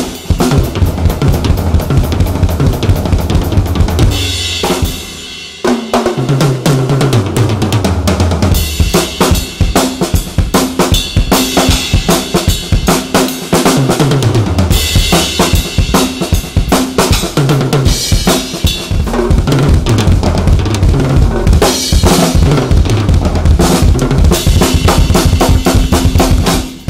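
Drum kit played with bass drum, snare and cymbals, with fills that step down the toms; the 18-inch bass drum wears an Evans EMAD head with its foam muffling ring. The playing stops briefly about five seconds in, then carries on.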